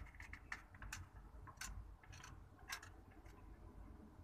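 Faint, irregular wet clicks of a mother cat licking, about two or three a second: she is licking clean a newborn kitten and herself just after giving birth.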